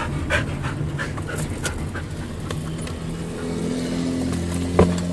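Husky panting inside a moving car, over the steady low rumble of the car's engine and road noise, with one sharp click near the end.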